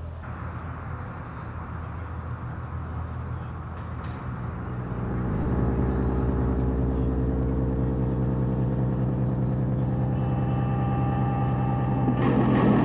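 A low, steady engine-like drone that grows louder and fuller about five seconds in, with a harsher, noisier surge near the end.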